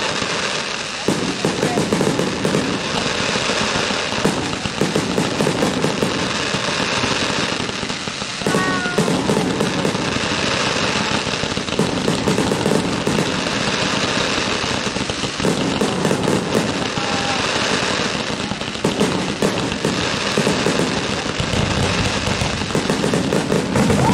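Fireworks going off in a dense, unbroken barrage of bangs and crackling.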